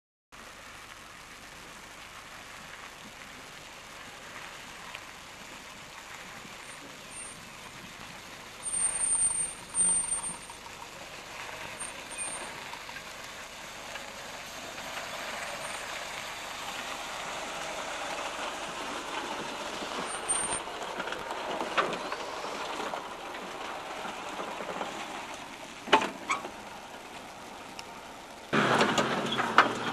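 Small four-wheel-drive vehicle running over a rough, eroded dirt track. There are brief high squeals about a third of the way in and a few sharp knocks, and a louder stretch starts near the end.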